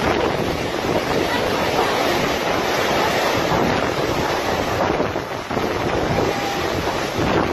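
Hurricane-force wind and heavy rain thrashing palm trees, with strong wind buffeting the microphone. It gusts steadily, easing briefly about five and a half seconds in.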